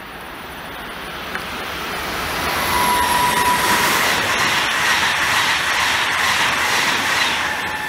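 Passenger train approaching and passing through the station at speed. It builds over the first few seconds into a steady rush of wheels on rails with a thin high tone in it, then begins to fade right at the end.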